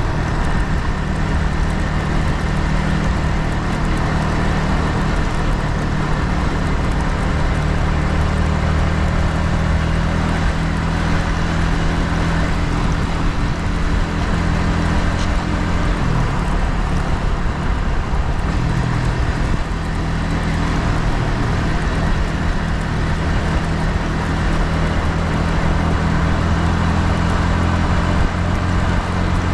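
Yamaha MT-15's single-cylinder engine running under way through its stock exhaust, with steady wind and road noise. The engine note shifts about sixteen seconds in.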